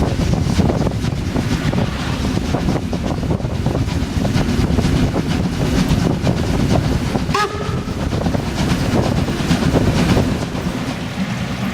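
Class 52 steam locomotive 52 1360 working a train, its exhaust beats coming rapidly over a steady rumble. A brief high tone sounds about seven and a half seconds in.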